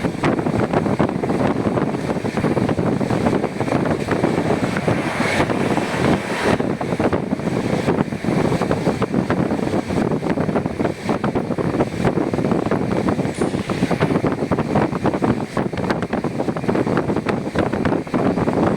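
Steady running noise of a moving passenger train: a continuous rumble and rattle of wheels on the rails, with wind on the microphone.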